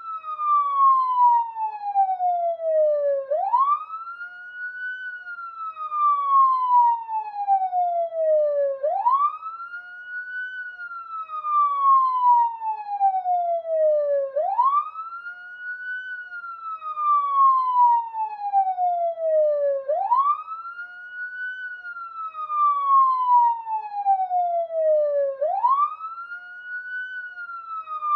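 Police siren in a slow wail: each cycle sweeps up quickly in pitch, then falls slowly for about four seconds, repeating about every five and a half seconds. It is loudest as it rises and peaks.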